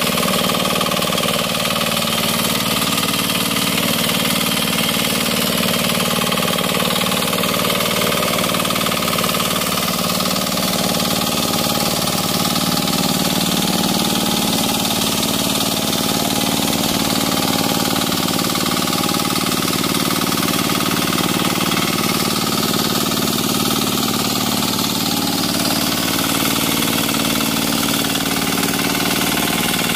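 Small single-cylinder engine of a float-type 'turtle' hand tractor running steadily at a constant speed, driving the tiller through flooded paddy mud.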